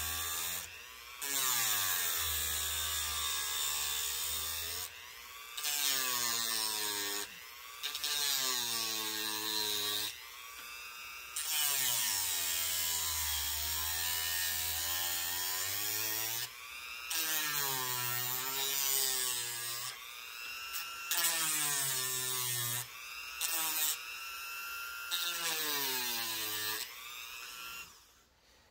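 Dremel rotary tool with a sanding bit grinding a weight pocket into the belly of a balsa crankbait body. The motor's whine sags and recovers in pitch again and again as the bit is pressed into the wood and eased off, with louder grinding in stretches of a few seconds. It stops just before the end.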